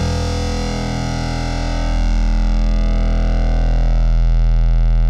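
Drumless rock backing track holding its final chord: the band's instruments ring on one sustained chord with no drums, the low bass note swelling about two seconds in.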